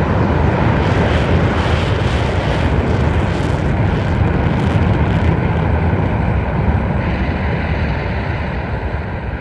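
A sound effect from the Heisei Gamera films: a loud, steady rushing rumble like jet thrust, fading away over the last couple of seconds.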